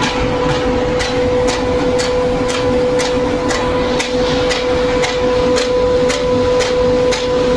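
Seal air fan running with a steady hum and a sharp regular knock about twice a second, an abnormal sound from the fan.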